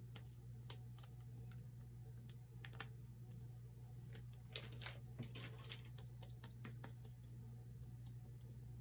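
Fingertips tapping and pressing a wet hydrogel sheet mask against the skin, making scattered soft, sticky taps with a denser run of them about halfway through. A faint low hum lies under the taps.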